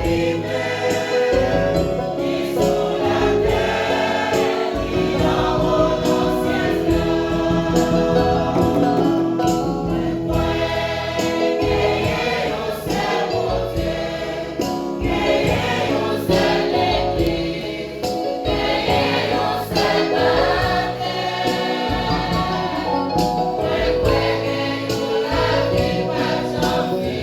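Choir singing gospel music, several voices together over a steady pulsing beat.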